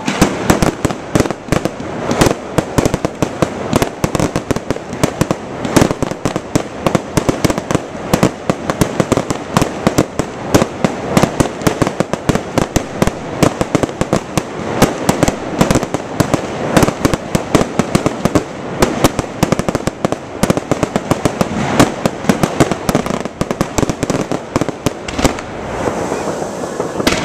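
Fireworks display at close range: a dense, unbroken barrage of shell bursts, many sharp bangs a second.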